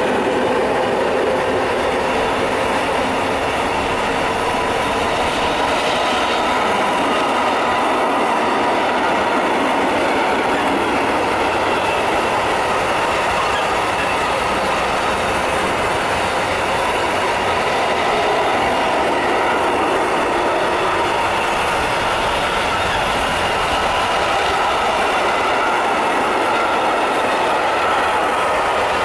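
Container freight wagons rolling past at speed: a loud, steady rumble and clatter of steel wheels on the rails, with a thin steady whine running through it.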